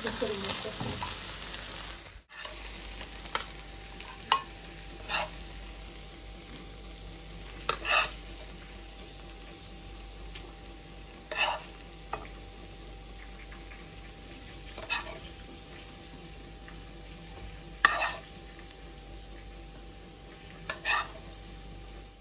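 Chicken malai kababs sizzling gently in cream in a pan over a low flame, with a cooking utensil clinking against the pan now and then, about a dozen times.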